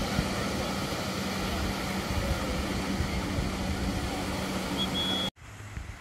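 Beach surf and open-air noise with a steady low motor hum running under it, the buzz of a patrol drone overhead. It cuts off suddenly about five seconds in.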